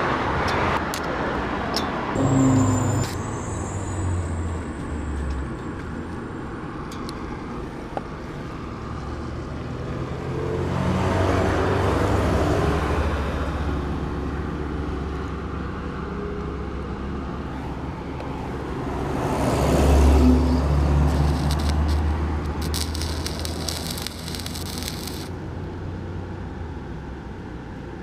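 Road vehicles passing by, heard twice: one swelling and fading about eleven seconds in, and a louder one about twenty seconds in.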